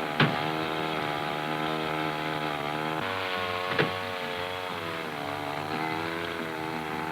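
Small gasoline engine of a power rescue tool running steadily at high speed while cutting into the wrecked car, with a few sharp cracks over it.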